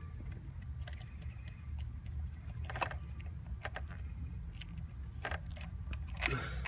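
A few sharp plastic clicks and rattles, spread out, as an electrical connector on the heater control unit's wiring is worked loose by hand, over a steady low hum.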